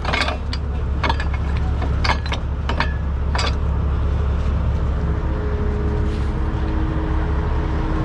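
Heavy truck diesel engine idling steadily, with sharp metal clinks and clanks of steel rigging hardware in the first three and a half seconds.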